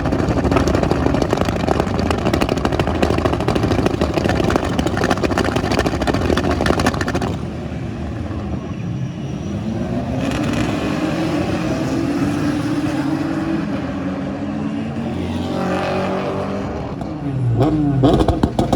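BTCC touring cars' turbocharged four-cylinder engines at racing speed: a loud, dense passing pack for the first seven seconds, then a single engine accelerating with its pitch climbing steadily, and more cars coming through near the end.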